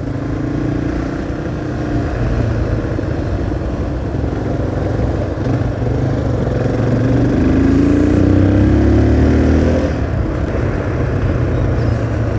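Motorcycle engine running while riding. It holds a steady note at first, then rises in pitch as the bike accelerates from about six and a half seconds in, and drops back near ten seconds. A heavy low rumble runs under it throughout.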